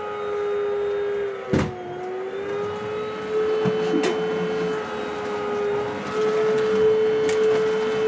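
Vacuum cleaner running with a steady motor whine, its pitch dipping briefly twice. A single knock comes about one and a half seconds in.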